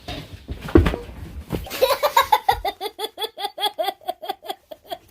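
Laughter: a long run of rapid 'ha-ha-ha' pulses, about five a second, starting about two seconds in and gradually slowing and fading. A couple of dull thumps come before it.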